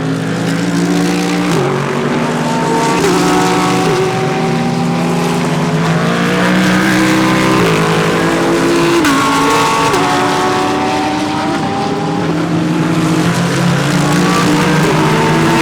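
Several GT3 race cars running past through a corner, their engines overlapping, with repeated gear changes making the engine pitch step up and down.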